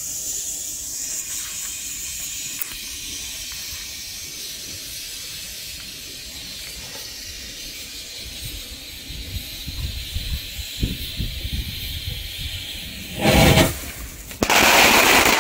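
Funke Geysir Kaliber C firework fountain burning with a steady hiss, with wind rumbling on the microphone from about halfway through. Near the end it starts its ejection, a short loud burst followed by a louder sustained rush as it throws out its effects.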